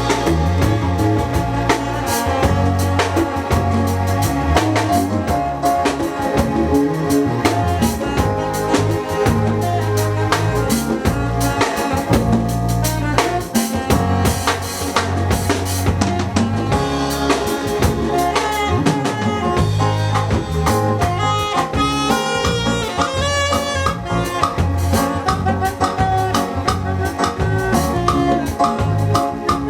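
Live band playing: a drum kit keeping a steady beat over a bass line, with a melodic lead line that comes up stronger about twenty seconds in.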